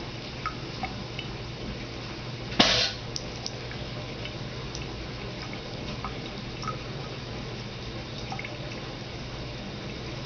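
Thin stream of tap water trickling into a bathroom sink while a cat laps from it, with small wet ticks and drips throughout. A short, louder burst of noise about two and a half seconds in.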